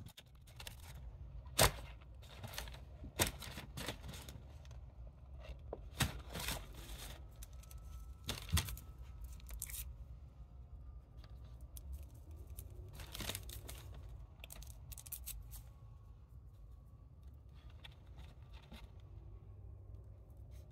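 Food packaging being torn and rustled in a series of sharp rips, most of them in the first half, over a low steady hum.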